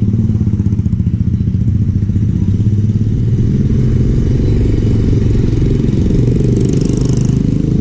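Motorcycle engine running steadily, a continuous low rumble.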